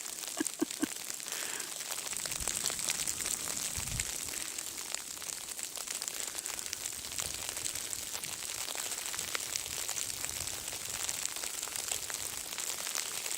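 Sleet falling steadily, a dense crackly patter of fine ticks on the snow and surroundings. There is a soft low thump about four seconds in.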